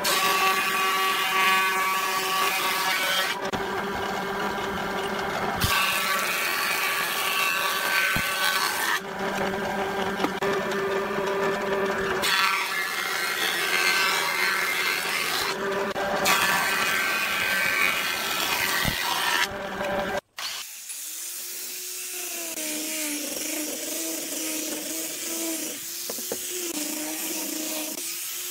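A thickness planer's motor hums steadily while its cutterhead planes a pine board in four passes, each a loud cutting spell of about three seconds. About two-thirds of the way in, this gives way to an angle grinder with a sanding disc running on the board, its pitch wavering under load.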